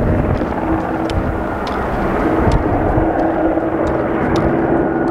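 Erupting Fagradalsfjall crater throwing up lava: a deep, continuous rumbling roar under a steady droning hum, with scattered sharp clicks.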